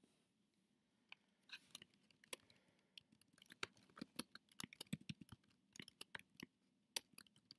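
Faint, irregular clicking and tapping of a computer keyboard and mouse: a quick, uneven run of clicks that starts about a second in and lasts until near the end, thickest in the middle.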